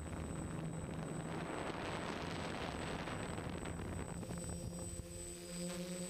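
Multirotor drone's electric motors and propellers humming steadily, with a rushing noise of wind on the onboard camera's microphone in the middle. About four and a half seconds in, the rushing fades and the motors' hum tones stand out more clearly.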